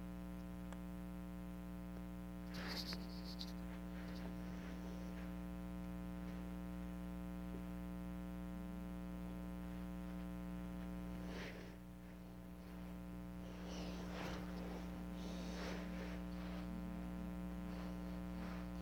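Steady electrical mains hum with a buzzy stack of evenly spaced overtones, faint throughout, with a few brief faint noises about three seconds in and again around fourteen to sixteen seconds.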